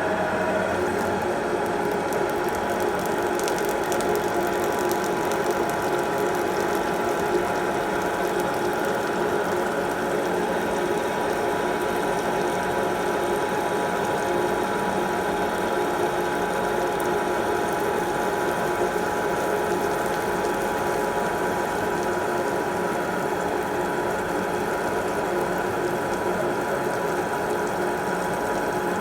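CNC lathe running: a steady mechanical whine of several held tones over a dense rattling noise.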